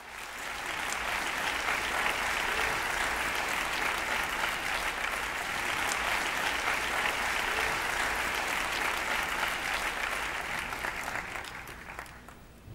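Audience applauding, a steady dense clapping that fades away near the end.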